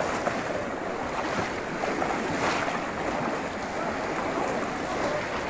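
A large crowd wading and splashing through shallow wetland water, a steady wash of water noise with a faint murmur of distant voices mixed in.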